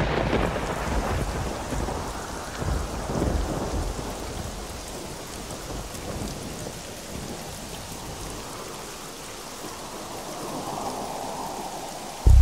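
Thunderstorm: thunder crashes at the start and rolls on over steady rain, with another low roll of thunder about three seconds in, then the storm slowly fades.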